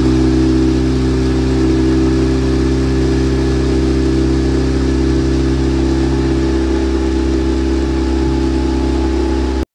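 An engine running at a steady speed, with a constant pitch and no change in revs; it starts and stops abruptly, as if cut in.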